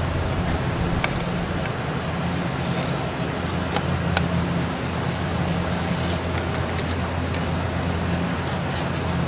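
Knife blade shaving and scraping along wood, carving feather sticks, in short sharp scrapes and clicks every second or two. Under it runs a steady low engine-like drone.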